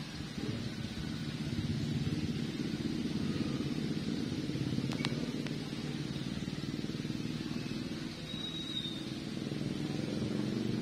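Motorcycle engine running on the road, picking up about half a second in and easing off briefly near eight seconds before building again. A single sharp click comes about halfway through, and a brief high squeak near the end.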